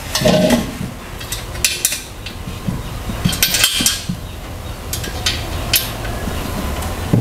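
Light metal clinks and rattles, irregular and short, from a metal-framed dining chair and its bolts being handled and fastened by hand, over a steady low hum.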